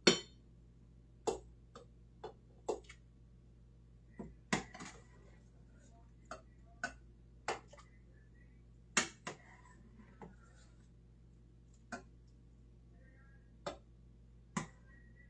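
Ladle and dishes clinking and knocking as soup is dished up from a pot into a bowl: sharp, separate clinks at uneven spacing, about fifteen in all, the loudest at the very start and about nine seconds in.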